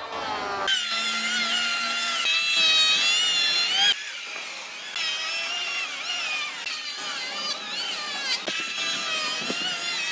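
Electric hand planer whining as it shaves a jackfruit-wood log column, its pitch wavering as the blades bite. The level drops suddenly about four seconds in.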